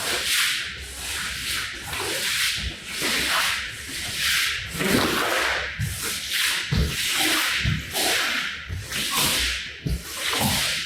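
Rough rasping strokes of a cleaning tool dragged across a dirty rug's pile, about one stroke a second.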